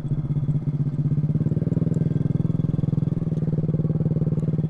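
Automatic scooter engine running at a low, steady speed with an even pulsing as the scooter rolls slowly along the path.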